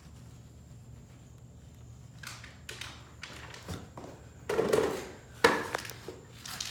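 A utility knife cutting through vinyl wall art along a seam: a few short scrapes, then two louder rasping strokes, each about half a second, a little past halfway.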